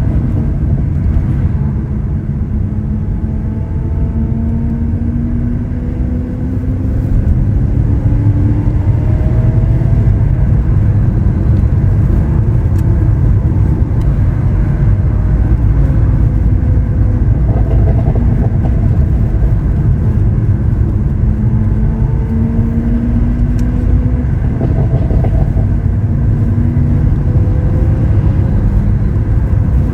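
Lamborghini Aventador SV Roadster's 6.5-litre V12 running on the move, its note climbing slowly and dropping back several times as it goes through the gears, over a steady low rumble of road and wind noise. It gets louder about seven seconds in.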